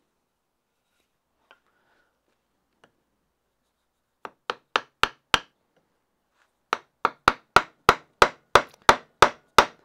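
Wooden mallet striking the handle of a crook neck gouge, driving it into green wood to clear waste from the inside of a shrink pot. A quick run of five blows growing louder, a short pause, then a steady run of about three blows a second.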